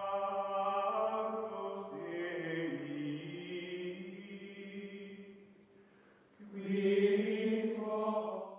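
Outro music of slow, sustained chords. The first chord fades away about five seconds in, then a second chord swells in and cuts off abruptly at the end.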